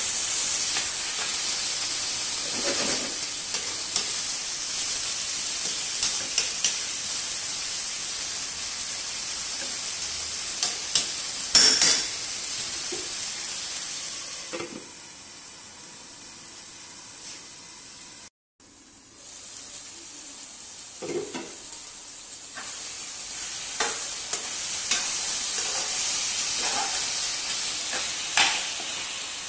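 Onions, tomatoes, mutton and bitter gourd sizzling in a nonstick frying pan while a spatula stirs and scrapes the pan, with scattered knocks. The sizzle turns quieter for several seconds in the middle, while a glass lid covers the pan, then picks up again near the end.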